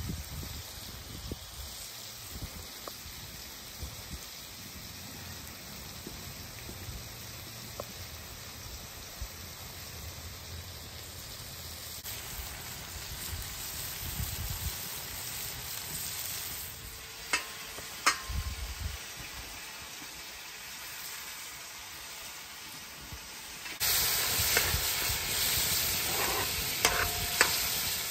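Food frying and sizzling in a pan, with a few sharp clicks. Near the end the sizzle abruptly turns much louder.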